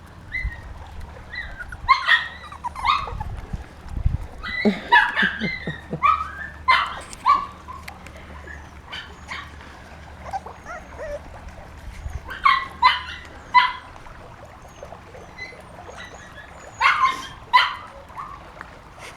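Young puppies giving short, high-pitched yelps and whimpers in several bunches, with pauses between.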